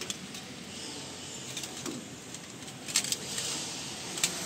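Light clicks and rustling of plastic parts being handled: flat printhead ribbon cables and a plastic ink-damper assembly at a printer carriage. A few sharp clicks come about three seconds in and again near the end, over a steady background hiss.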